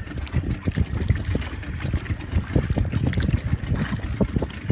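Wind buffeting the microphone, with small waves slapping and lapping against the hull of an outrigger boat as uneven low thumps.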